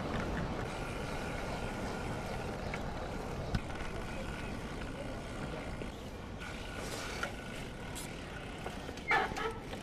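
Steady rushing noise of a bicycle ride: wind on the microphone and tyres rolling over paving, with a short louder sound near the end as the bike comes to a stop.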